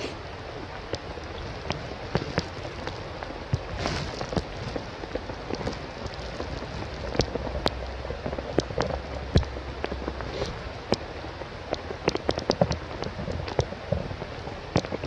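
A steady hiss with many irregular sharp ticks and taps scattered through it, like rain pattering on a nearby surface, with a low rumble in the middle.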